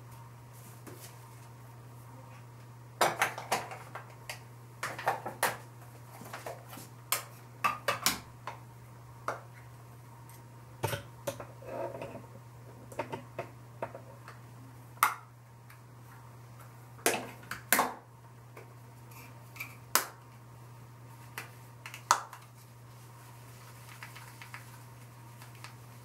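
Sharp clicks and clatters of small hard objects, makeup containers and tools being handled, opened and set down, at irregular intervals over a steady low hum.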